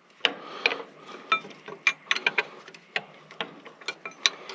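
Hand tools clicking and clinking on metal during work on a tractor: a string of sharp, irregular clicks, some with a short metallic ring.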